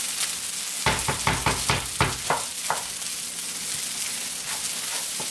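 Crumbled soyrizo sizzling in coconut oil in a nonstick frying pan, a steady hiss. About a second in, a wooden spoon stirs and scrapes it in a quick run of six or seven strokes that lasts under two seconds.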